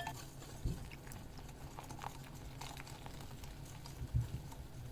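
Thick flour-and-cornflour batter being stirred in a bowl with water worked in: faint wet stirring with a few light clicks and two dull knocks.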